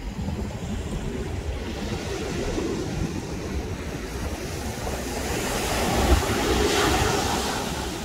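Small waves breaking and washing up a sandy beach, the surf swelling to its loudest about two thirds of the way through and then easing off, with wind buffeting the microphone underneath.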